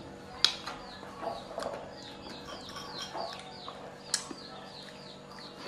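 Birds chirping in the background, a quick series of short falling chirps, with two sharp clinks of a metal fork against a ceramic plate, about half a second in and again near four seconds in.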